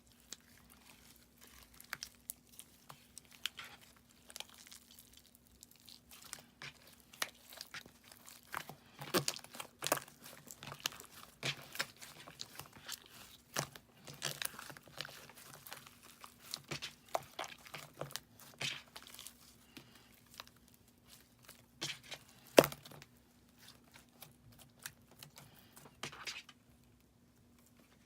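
Hands kneading and stretching clear slime with glitter mixed in: irregular sticky clicks, pops and crackles, one sharply louder pop a little after 22 seconds in. A faint steady hum lies underneath.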